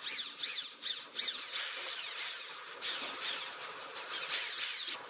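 Electric drill spinning a valve against its seat in a Yamaha Serow 225 cylinder head, lapping it in with grinding paste. It runs in short repeated bursts, about two a second, each a gritty grinding with a whine that falls in pitch.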